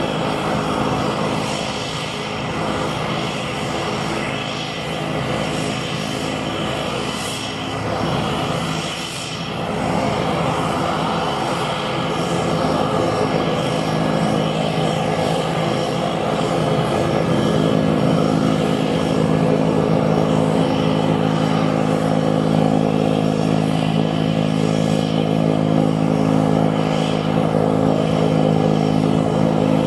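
ATR 72-600's Pratt & Whitney PW127M turboprop engines running as the airliner taxis on the runway, a steady propeller drone made of several held tones. It grows louder about two-thirds of the way through.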